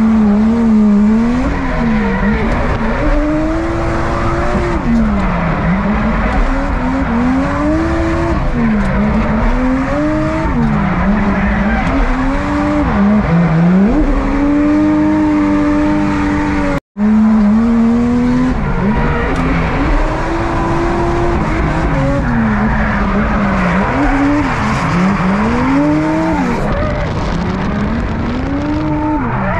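Drift car's engine heard from inside the cabin, revving up and down over and over as it slides through corners in tandem behind another car, with tyre squeal. The sound drops out for an instant a little past halfway.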